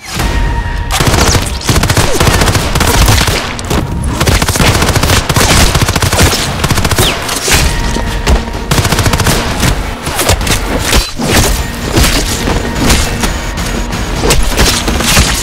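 Rapid automatic gunfire sound effects: a near-continuous stream of shots with booming impacts, over music.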